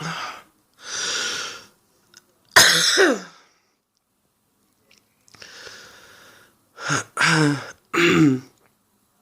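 A woman with a cold coughing: one loud cough about two and a half seconds in, then three coughs in quick succession near the end, with noisy breaths between.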